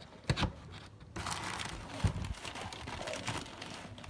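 Packaging being handled while unboxing: a couple of knocks, then crinkling and rustling that runs on from about a second in, with another knock partway through.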